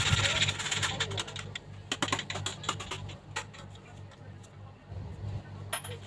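Whole nutmeg being grated by hand over a steel bowl of marinating beef: a short scraping rasp that fades out about a second in, then a run of light, irregular clicks and taps.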